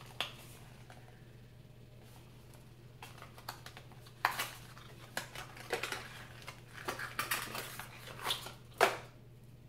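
Skincare product packaging handled by hand: a scattered run of light clicks, taps and rustles, the sharpest one near the end.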